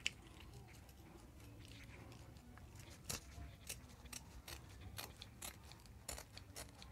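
Scissors cutting through cloth, faint: from about three seconds in, a string of short, irregular snips as the blades close along the bottom edge to trim it even.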